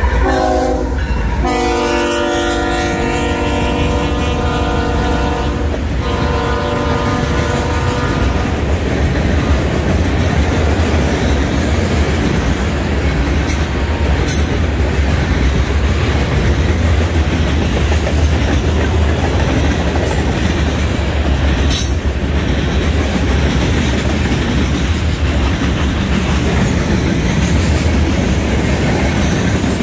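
BNSF freight locomotive's multi-chime horn sounding, its chord dropping in pitch about a second and a half in as the locomotive goes by, and cutting off about eight seconds in. Then the steady rumble of the manifest train's freight cars rolling past, with a few sharp clicks of wheels over the rail.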